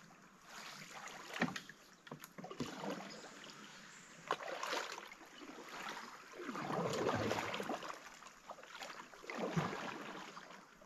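Canoe paddle strokes through water, a swishing surge every two to three seconds, with a few sharp knocks in between.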